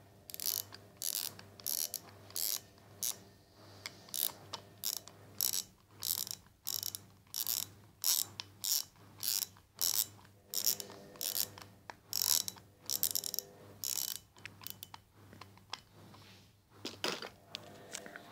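Metal parts of a disassembled airgun scope twisted and turned in the hand, giving a quick, uneven run of short ratcheting scrapes, about two or three a second, that break off near the end with a few last ones.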